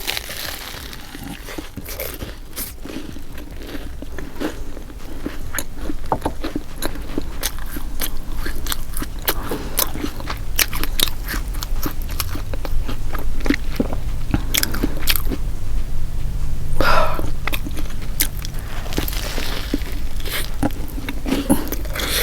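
Close-miked biting and chewing of a Philly cheesesteak sandwich on toasted garlic bread: irregular crunching of the crust and wet, messy chewing, with one louder burst late on.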